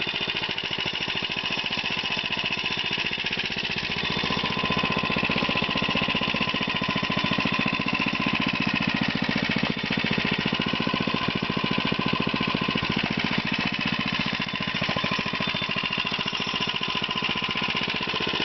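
97 cc (2.8 hp) mini-bike engine running steadily, with an even, unchanging beat of its firing strokes.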